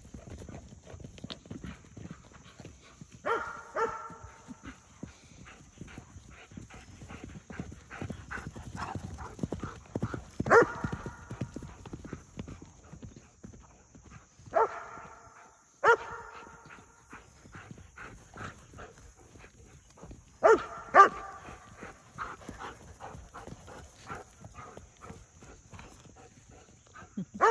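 A palomino Morgan horse's hoofbeats thudding irregularly as it runs about. A dog barks about seven times, in single short barks and one quick pair, over the top.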